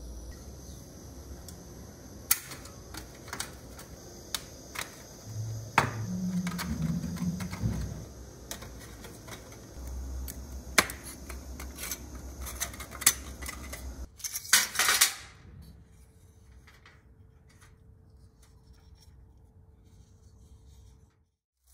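Irregular sharp clicks and clinks of small hard objects being handled on a workbench, with a brief scraping rush about two-thirds of the way through. After that it goes quieter, with a faint steady hum.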